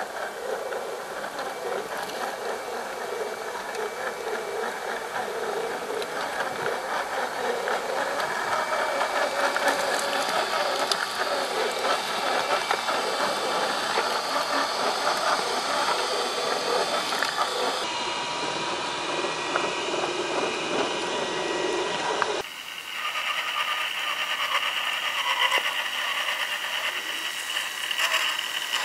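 RC4WD Trail Finder 2 scale RC crawler driving over rocks and dirt: the whine of its small electric motor and geartrain with the tyres crunching over stones. The sound changes abruptly twice in the second half.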